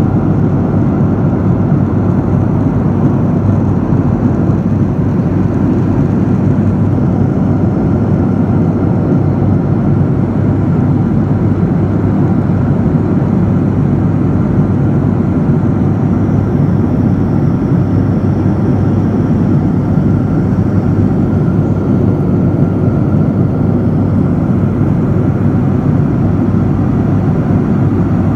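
Steady cabin noise of an airliner in flight, heard inside the cabin by the window: an even, deep wash of engine and airflow noise that does not change.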